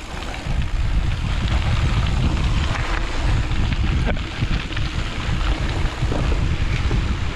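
Wind buffeting the microphone of a camera on a mountain bike riding fast down a bumpy trail, with a dense low rumble from the tyres and bike over the ground. It grows louder about half a second in.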